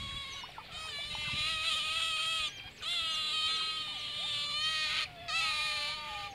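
Asian small-clawed otters calling together: long, high-pitched, whining squeals from several animals at once, held steady with a slight waver. They break off briefly twice, about two and a half seconds in and again about five seconds in.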